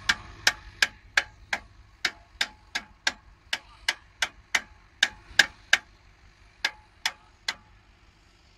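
Ratchet wrench clicking at a steady pace, about three sharp metallic clicks a second, as a bolt on a tractor-mounted reversible plough is turned during adjustment. The clicks pause briefly and then stop shortly before the end.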